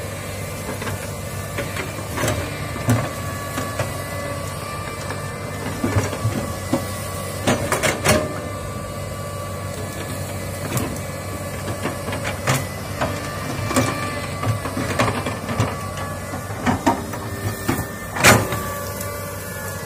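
Komatsu hydraulic excavator's diesel engine running steadily with a higher whine over it, while the bucket pushes over trees and brush, giving irregular cracks and knocks; the loudest crack comes near the end.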